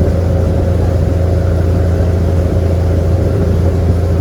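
Sightseeing boat's engine running with a steady low drone.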